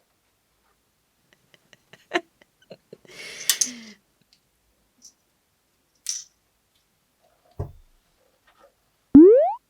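Small objects handled: a few sharp clicks, a brief crinkly rustle and a low thud. Near the end comes a loud cartoon sound effect, a single whistle-like tone sliding quickly upward in pitch.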